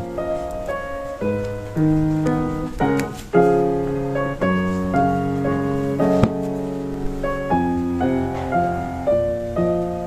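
Instrumental piano background music.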